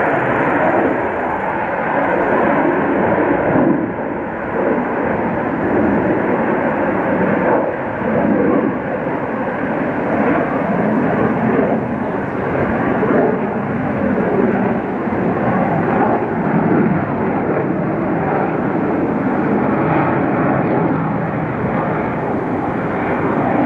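Sukhoi Su-57 fighter jet's engines running: a loud, steady rush of jet noise that swells and eases slightly every second or two.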